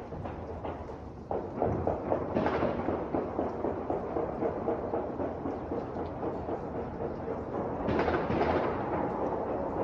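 Dense barrage of distant celebratory gunfire and fireworks: a continuous rolling crackle of many overlapping shots. It swells about a second in, with louder flurries a couple of seconds in and near the end.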